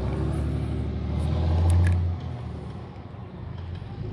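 An engine running close by with a low, steady hum. It swells to its loudest just under two seconds in, then drops away.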